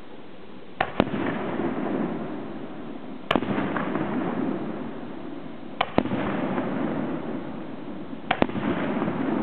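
Aerial firework shells bursting with sharp bangs about every two and a half seconds, some as quick double bangs, over a continuous rumbling, crackling wash of noise.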